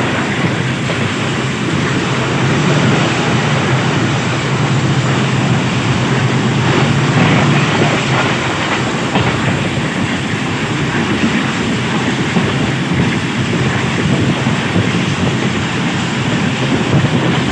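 Bolan Mail passenger train running fast along the track: a steady, loud noise of the coaches' wheels on the rails.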